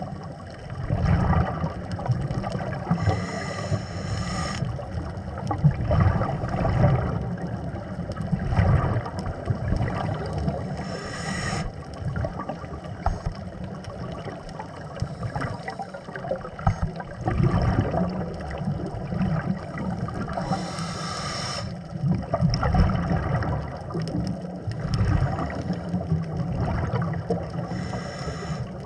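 Underwater sound picked up by a camera on a reef dive: a steady, uneven low rumble of water moving around the camera, with a short hissing burst roughly every eight seconds.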